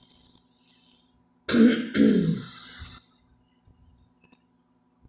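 A woman clears her throat with two short, loud coughing strokes about a second and a half in, after a soft breathy exhale.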